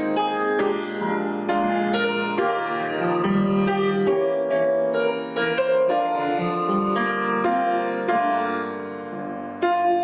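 Piano music, with notes struck and held so that they overlap.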